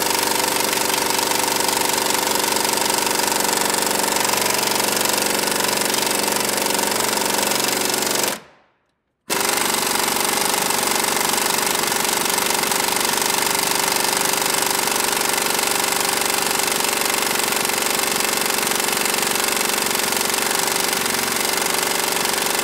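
Pneumatic air hammer hammering continuously on the rusted-in upper control arm bushing. It cuts off abruptly about eight seconds in and starts again a second later.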